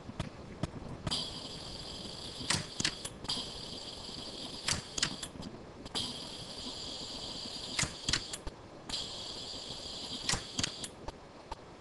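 Orion pulsed-arc dental welder firing weld pulses: sharp snaps in clusters of two or three every couple of seconds as gold wire is fused onto a palladium implant bar. Between the clusters a steady high hiss starts and stops three times.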